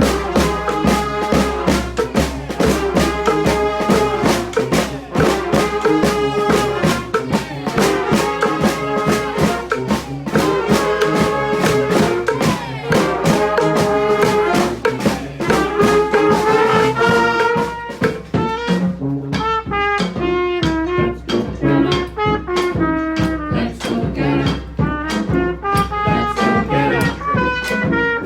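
Street brass band playing a tune: trumpets and trombones over a steady drum beat.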